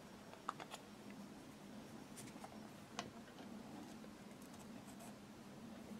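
Faint clicks of a small steel throttle lever being handled and fitted onto the throttle shaft of a Simms diesel injector pump: two light clicks about half a second in and another about three seconds in, over quiet room tone.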